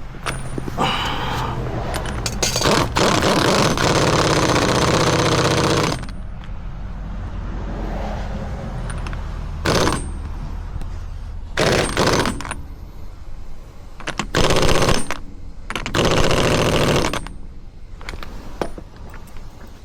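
Pneumatic impact wrench hammering in bursts: one long run of about three seconds, then four shorter bursts.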